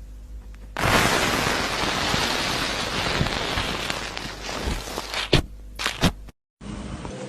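Slime being squished and worked by hand, a dense crackly, hissing texture that grows loud about a second in, with a few sharp pops near the end. The sound briefly cuts out before a quieter slime sound begins.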